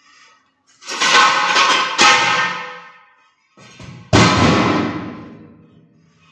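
Steel wheel rims clanging against each other as they are dropped or thrown onto a pile. There are three loud strikes, about a second, two seconds and four seconds in, each ringing out for a second or more.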